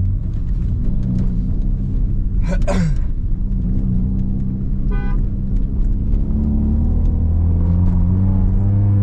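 Hyundai i20 with a Superchips stage 2 remap and a mild-steel Automech full-system exhaust, droning low while driving, with a brief burst of exhaust crackle a few seconds in; the car's natural crackle on lifting off. The engine note climbs near the end as it pulls again, and a short beep sounds about five seconds in.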